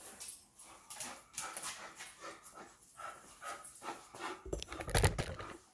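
Handling noise as the camera is picked up and moved: a run of rustles, clicks and knocks, with a loud low bump near the end.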